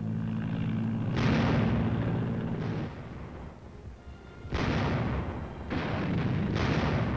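Field artillery firing, four shots with a short fading rumble after each: one about a second in and three close together in the second half. A steady low drone runs under the first half.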